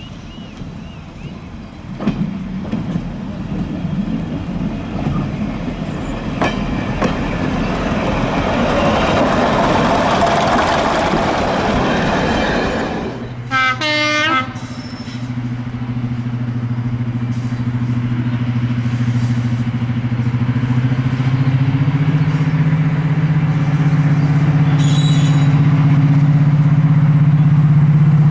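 Heritage diesel locomotive passing with a building rush of wheel and engine noise, then a diesel engine running with a steady low drone whose pitch steps up about two-thirds of the way through as it takes more power. A brief pitched sound sits between the two parts.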